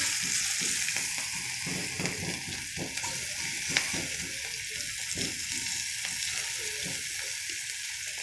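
Sliced onions sizzling in hot oil and pork drippings in a skillet, a steady frying hiss. Silicone-tipped tongs stir them with light knocks against the pan, and there is one sharper click about halfway through.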